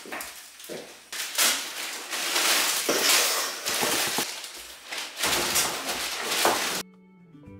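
Plastic carrier bags rustling and crackling as shopping is unpacked onto a table, with a few light knocks. The sound cuts off abruptly near the end and acoustic guitar music begins.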